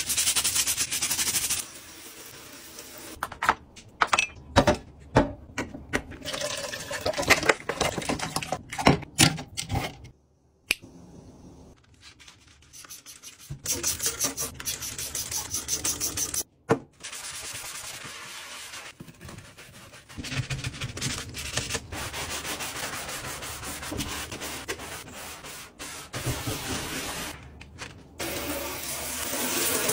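A dish brush and a sponge scrub a plastic sink mat and a soapy stainless-steel sink and drainboard in rough, repeated rubbing strokes. About halfway through, a trigger spray bottle spritzes cleaner into the sink.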